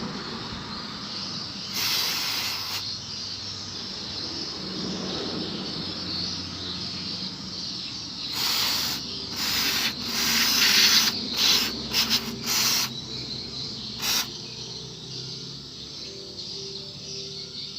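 Aerosol can of carb and injector cleaner sprayed in short hissing bursts: one about two seconds in, then a run of several quick sprays a few seconds later and one last short one. A steady high insect chirring runs underneath.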